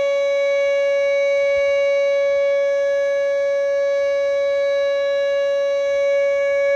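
Whelen WPS-2910 electronic outdoor warning siren sounding a loud, steady single-pitch tone rich in overtones: the steady alert signal of its monthly test.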